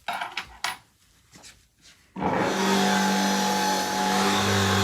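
A few clicks and knocks, then a motor starts suddenly about two seconds in and runs steadily with an even hum.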